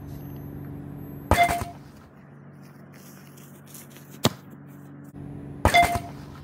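Soccer ball kicked and landing in a net goal: three sharp thuds over a low steady hum. The first and last are the loudest and carry a brief ring; the middle one, a little past four seconds in, is a short crisp kick.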